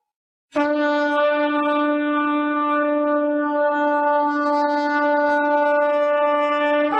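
A shofar (ram's horn) blown in one long, steady blast that starts about half a second in and is held for about six seconds.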